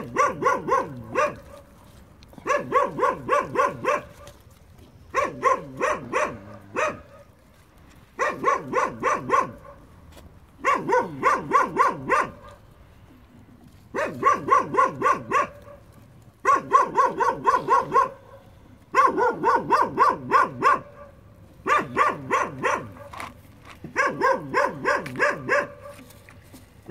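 A dog barking in rapid runs of about six to eight sharp, fairly high-pitched barks, a new run every two to three seconds.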